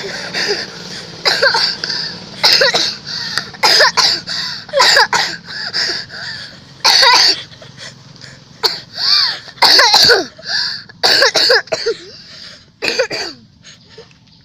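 A small child coughing again and again, about a dozen harsh coughs roughly one a second, some with a hoarse voiced catch, sounding like an old man's cough.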